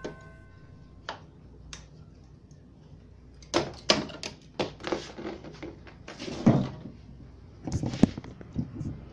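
Scattered sharp clicks and knocks of a small circuit board and tools being handled on a workbench: a couple of single clicks early, then a busier run of knocks through the second half.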